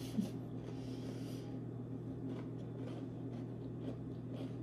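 A person chewing a mouthful of s'mores dip on graham cracker, with soft crunching in the first second and a half and a few faint clicks after, over a steady low electrical hum.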